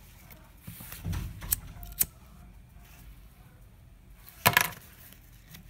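Small handheld lighter struck a few times, sharp metallic clicks about one and a half and two seconds in and the loudest about four and a half seconds in, to sear the cut edges of satin ribbon. Ribbon is rustled between the strikes.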